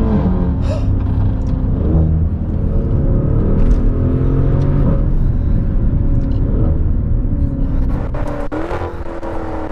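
Maserati Levante Trofeo's Ferrari-built twin-turbo V8 running hard under acceleration, its pitch climbing and stepping at the gear changes, with a few sharp cracks near the end.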